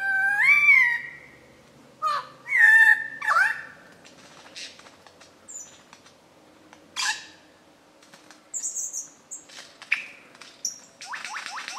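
Male superb lyrebird singing a varied run of his mimicked repertoire: whistled phrases that rise and fall, scattered sharp notes and a loud downward sweep. Near the end comes a fast train of repeated rising notes, about six a second, as he displays.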